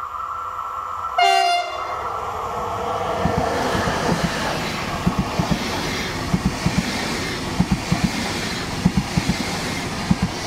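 A double-deck Intercity train sounds one short horn blast about a second in, then passes close by. Its wheels rumble and click rhythmically over the rail joints.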